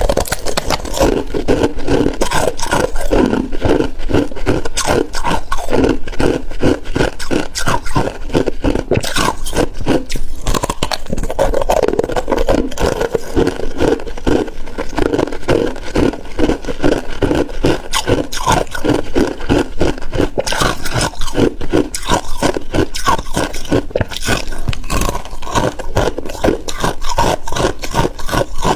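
Close-miked chewing of freezer frost and ice: rapid, continuous crunching, several crunches a second, with no pauses.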